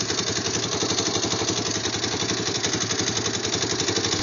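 Yamaha quad's single-cylinder engine idling steadily with an even, rhythmic beat.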